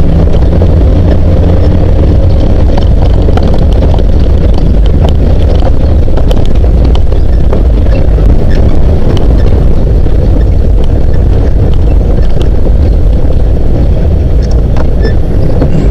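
Classic Jeep CJ7 driving along a rough dirt trail: a steady, deep engine and driving noise, with wind buffeting the microphone and scattered small clicks and rattles throughout.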